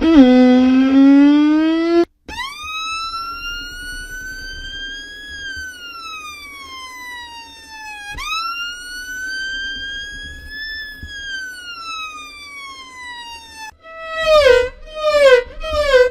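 Siren-like wailing tone: a rising tone cuts off about two seconds in, then two slow wails that each climb and then slide down over about six seconds, then rapid falling yelps, two or three a second, near the end.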